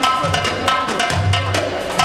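Middle Eastern belly dance music: a hand drum plays a quick pattern of sharp strokes over deep bass notes and a held melody line.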